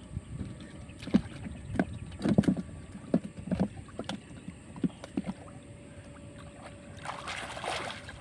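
Pond water splashing and sloshing during electric fishing, with a run of short low knocks and slaps, then a louder rushing splash near the end. A faint steady hum sits underneath.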